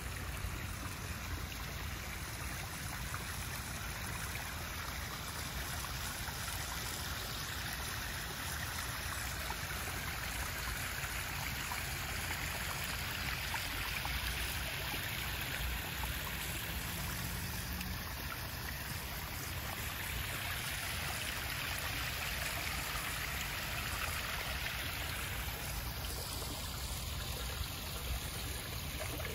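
Small backyard pond waterfall splashing steadily over stacked stones into the pond.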